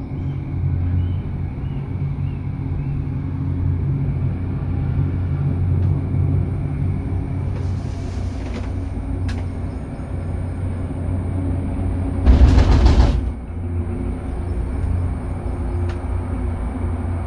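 Gondola cabin of a cable car riding along its cable, with a steady low rumble and hum. A brief clatter comes about eight seconds in, and a louder rattling clatter lasting about a second comes about twelve seconds in.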